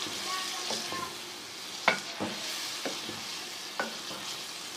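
Liver, onions and a fresh tomato, garlic and ginger paste frying in a pan, a steady sizzle while being stirred, with a few sharp knocks, the clearest about two and about four seconds in. The sizzle is the tomato paste's water cooking off.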